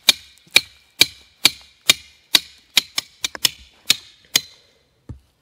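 A steel garden T-post being hammered into the ground with a short-handled hammer: about a dozen sharp strikes with a metallic ring, roughly two a second and quickening near the end, then stopping. The post is going in easily through soft ground. One dull thud follows near the end.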